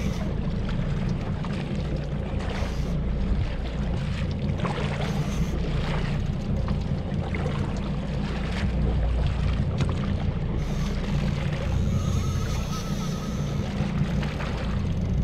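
The boat's engine idles with a steady low hum, while wind on the microphone and water round the hull make a rushing noise over it.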